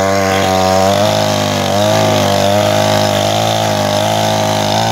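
Two-stroke petrol chainsaw running at full throttle while cutting through a log, its engine note wavering slightly as the chain bites into the wood.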